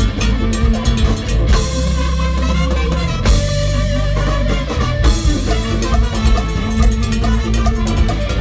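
Live Latin rock band playing a boogaloo groove, with drum kit and congas driving the rhythm under electric guitar and bass.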